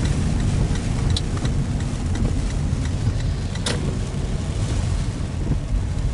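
Car running, heard from inside the cabin: a steady low rumble of engine and road noise, with scattered light ticks and one sharp click about four seconds in.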